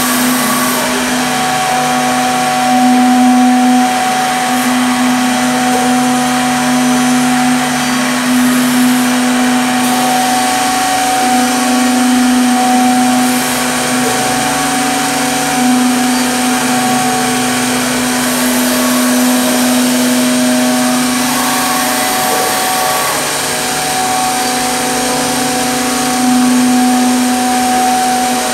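Zhanfei SDC-1500 CNC mortising machine running, its router spindles cutting mortises in wooden workpieces. It makes a steady whine over a continuous rushing noise, rising and falling slightly in level.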